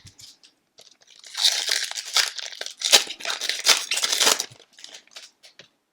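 Foil wrapper of a hockey card pack crinkling as it is torn open, a dense crackle from about a second in to about four and a half seconds, with a few small clicks around it.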